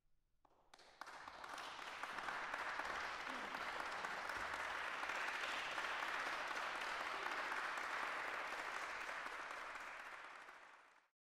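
Audience applauding, starting about a second in, holding steady, then fading out near the end.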